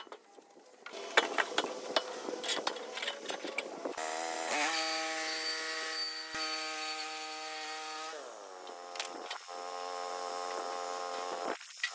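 Wooden boards knocking and sliding on the bed of a Woodland Mills HM130MAX portable bandsaw mill. About four seconds in, the mill's small gasoline engine is heard running at cutting speed as the band blade saws along the pole, then drops to a lower, quieter steady run.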